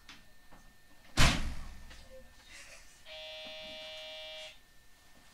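Electric train's sliding doors shutting with a loud thud about a second in, then a steady buzzer tone lasting about a second and a half.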